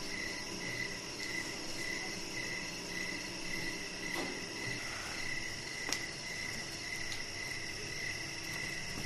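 An insect chirping steadily in the background, a short high chirp repeating about two and a half times a second. One faint tick sounds about six seconds in.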